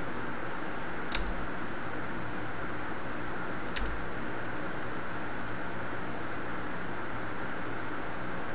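Faint, scattered clicks of a computer mouse and keyboard, with two louder clicks about a second in and just before four seconds, over a steady microphone hiss.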